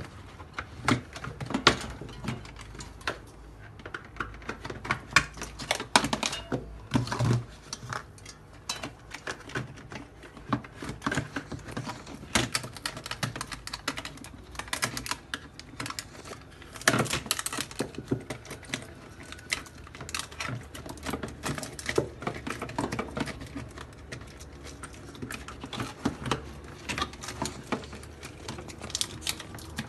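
Irregular plastic clicks, taps and knocks of hands working the inner panel and fan cover of a refrigerator's freezer compartment, with a louder clatter about seventeen seconds in.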